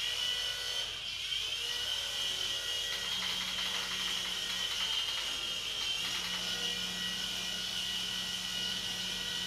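MJ-series 2.5-channel infrared toy RC helicopter running, its small electric motor and rotors giving a steady high-pitched whine. A lower hum joins about three seconds in, drops out briefly and returns.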